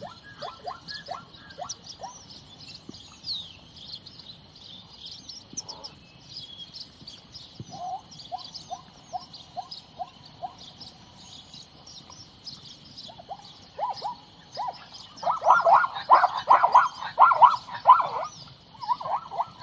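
Zebra calling: a series of short repeated barking yelps, slow and evenly spaced at first, then louder and quicker near the end. Birds chirp and a steady high hum runs behind.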